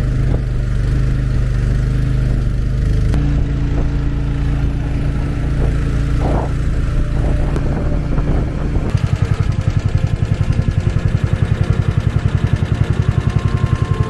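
Small boat's engine running steadily. About nine seconds in it turns to a rapid putter of about six beats a second.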